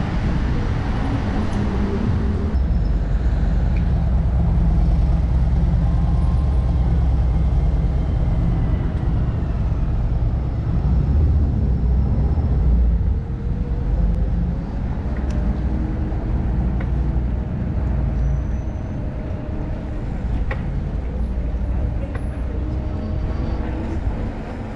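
Wind rumbling on the microphone of a camera riding on a bicycle along a town street, mixed with the sound of car traffic around it. The rumble eases briefly about halfway through.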